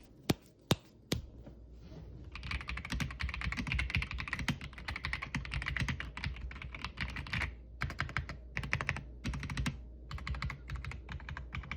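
Royal Kludge R75 mechanical keyboard being typed on, its factory-lubed linear switches under PBT keycaps: a few separate sharp key presses, then a run of fast continuous typing that thins to scattered keystrokes with short pauses in the second half.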